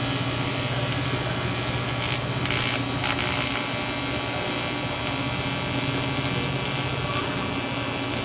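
AC TIG welding arc on aluminum, buzzing steadily with a hiss over it.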